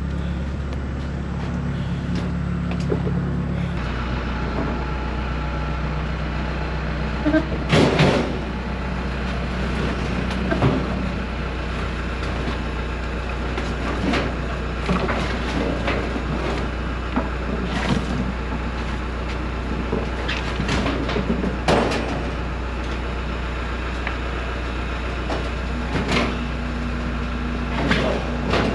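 Tractor engine running steadily, its pitch shifting about four seconds in, with irregular sharp clanks and knocks about every few seconds, the loudest around eight seconds in.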